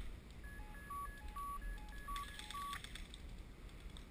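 A repeating pattern of short electronic beeps at three different pitches, like a melodic ringtone or alert, sounding on and off. About two seconds in there is a faint quick rattle of clicks.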